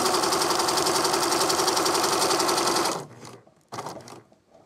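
Electric home sewing machine running at a steady fast pace, its needle stitching down through fabric covered in loose threads. It stops abruptly about three seconds in, leaving a few faint rustles and clicks.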